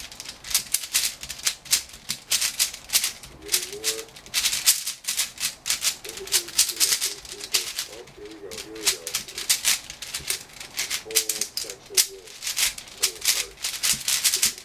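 Hard plastic puzzle pieces clicking and clattering in quick, irregular runs of sharp clicks, as a twisty puzzle is handled and turned.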